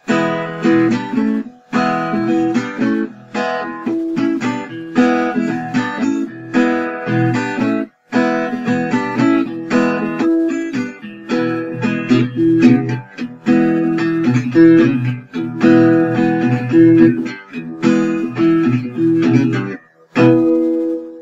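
Background music of a guitar strumming chords in a steady rhythm, with a couple of brief pauses.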